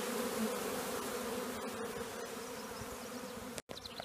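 Honeybee swarm buzzing: the steady hum of many bees flying around and crawling over the swarm box as they move in. The hum eases slightly and breaks off for an instant near the end.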